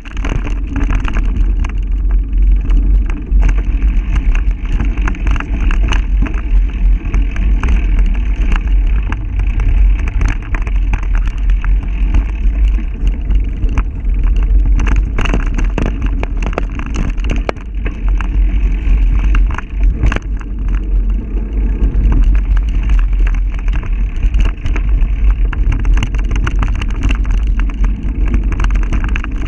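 Mountain bike ridden fast along a dirt singletrack, heard through a camera mounted on the bike: a constant, muffled low wind rumble with frequent rattles and knocks as the bike and mount bounce over the trail.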